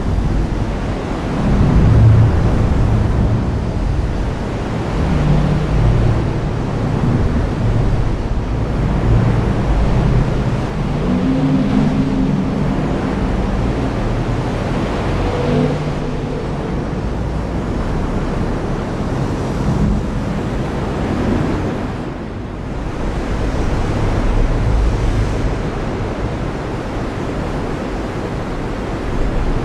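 Heavy rain falling in a steady hiss, with low rolling thunder that swells and fades underneath.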